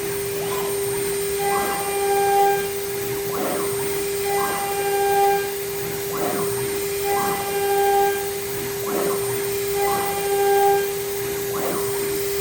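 DIY CNC router running a repeated motion. A steady whine runs throughout, and the NEMA34 closed-loop stepper motors give rising-and-falling whines that alternate with short held tones, about one cycle every second and a half to two seconds.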